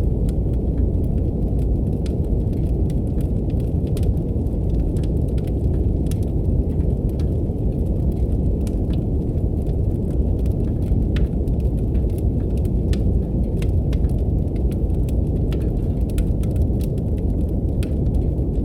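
Brown noise, a steady deep hiss, mixed with a wood fire in a fireplace crackling in scattered, irregular sharp pops.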